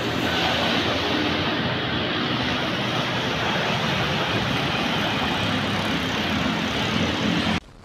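Street traffic: cars and motorbikes passing on a busy city road, a steady rumble and hiss of engines and tyres that cuts off suddenly near the end.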